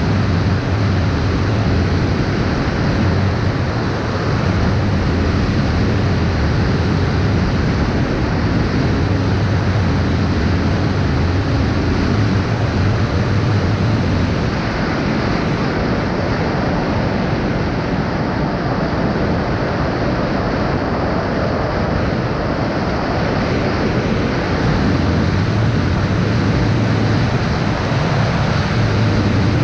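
Steady, loud rush of wind noise on the microphone, with a low hum that swells and fades several times.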